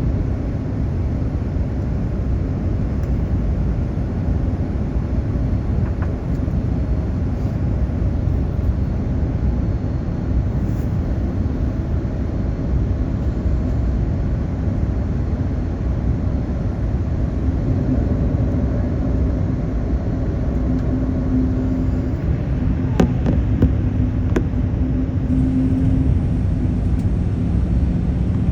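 Steady low rumble of a Boeing 787 airliner's engines and airflow. A low hum comes in about two-thirds of the way through, and two short clicks sound near the end.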